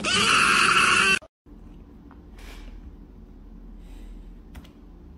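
A loud, high, harsh sound for about a second, cut off sharply. After it come a low hum and a few faint clicks, like buttons being pressed on a portable Bluetooth speaker.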